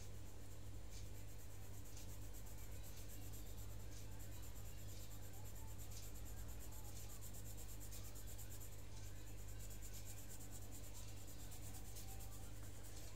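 Colored pencil scratching on paper in short repeated shading strokes, over a steady low hum.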